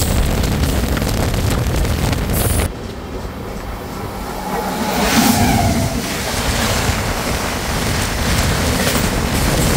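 Running noise of a moving passenger train with wind rushing past. The sound drops off sharply about two and a half seconds in, then swells up again around five seconds.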